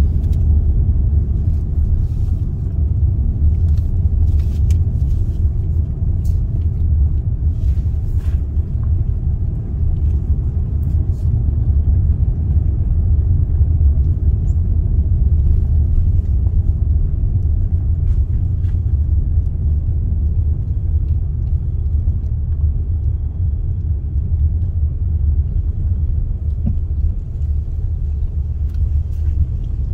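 Steady low rumble of a truck driving slowly, heard from inside the cab, with a few faint ticks and knocks in the first several seconds.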